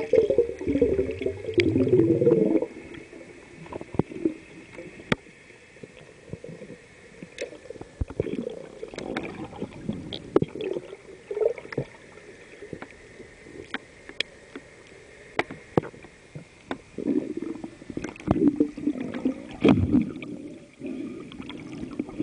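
Underwater sound at the camera: bursts of gurgling, bubbling water at the start and again in the last few seconds, with scattered sharp clicks between.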